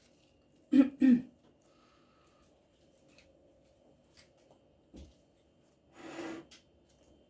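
A woman coughs twice in quick succession about a second in. A light tap follows, and near the end there is a softer throat-clearing huff.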